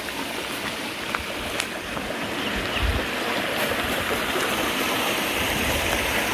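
Stream water running steadily, with a few faint clicks.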